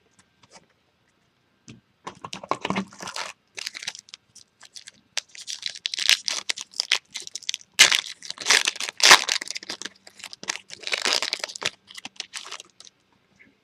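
Crinkling and tearing of a foil trading-card pack wrapper being torn open and handled, in irregular crackly bursts that are loudest about halfway through.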